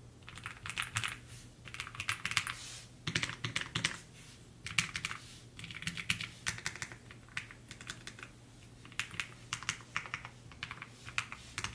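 Typing on an IQUNIX Magi65 Pro low-profile mechanical keyboard with an aluminium body: rapid keystroke clicks in bursts of a second or two, separated by short pauses.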